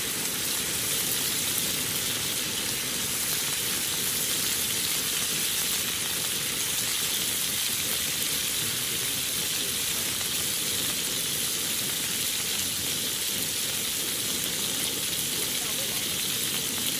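Thick beef steaks sizzling steadily in hot oil in a black frying pan over a camp burner.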